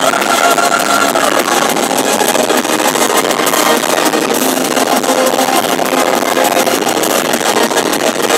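Symphonic metal band playing live at full volume, heard as a dense, continuous wall of sound with little bass. A held high note fades out about a second and a half in.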